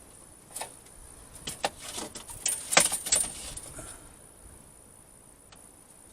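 A run of sharp clicks and light metallic rattles from measuring and marking tools being handled on plywood, loudest about three seconds in, then quiet.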